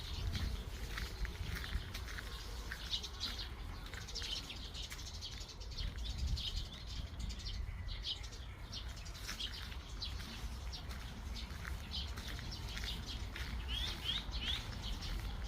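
Small birds chirping: many short, high chirps scattered throughout, with a quick run of them near the end, over a steady low rumble.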